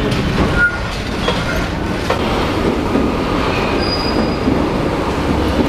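Berlin U-Bahn subway train running at a station platform: a steady rumble with a few brief high wheel squeals.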